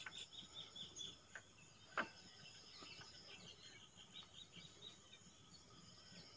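Near silence: faint, quick chirping in the background, with a single sharp click about two seconds in.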